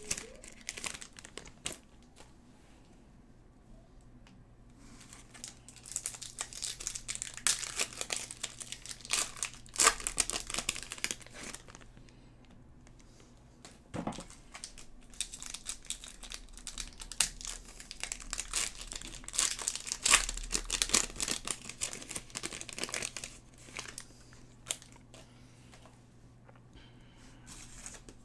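Trading-card pack wrappers crinkling and tearing as Topps Chrome packs are opened and handled, in several bursts of rustling with quieter pauses between.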